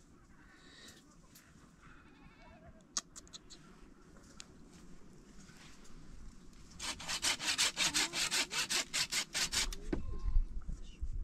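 Hand saw cutting through wood in quick, even back-and-forth strokes for about three seconds, starting about seven seconds in, after a few faint clicks. A low thump follows just after the sawing stops.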